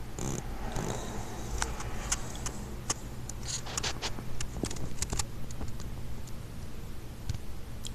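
Rustling, then a run of small sharp clicks and ticks, as an American toad lunges across coconut-fibre substrate and catches and gulps down an earthworm, over a steady low hum.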